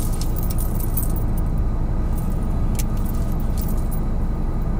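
Steady low hum of a car idling, heard from inside the cabin, with scattered light clicks and jingles of rings and bracelet as a small bottle is handled.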